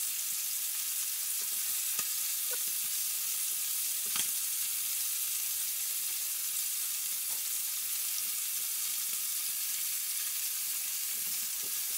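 Tandoori-marinated chicken pieces frying in butter and oil in an open pan over a low flame: a steady sizzle with a few faint crackles.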